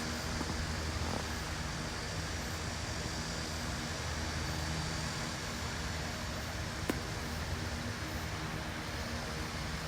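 A steady low machine hum under an even hiss, with a single sharp click about seven seconds in.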